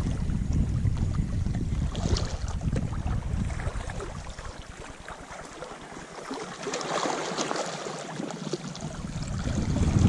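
Wind buffeting the microphone in a low rumble, with small waves lapping and fizzing over the shallow reef. The wind eases for a few seconds around the middle, leaving the water's crackle, then picks up again near the end.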